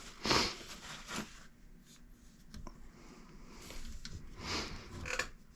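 Faint, scattered scrapes and taps of small parts being handled and worked by hand, a few separate short sounds with the most distinct one about a third of a second in.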